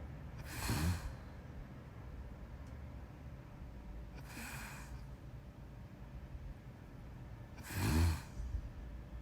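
A person snoring in deep sleep: a snore with a low rattle about half a second in, a softer breathy exhale in the middle, and another snore near the end.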